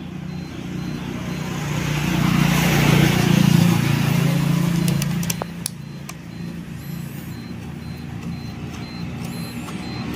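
A road vehicle passing nearby, swelling and fading over a few seconds, over a steady low engine hum from traffic. A few light metallic clicks come about halfway through, from the screwdriver at the battery terminals.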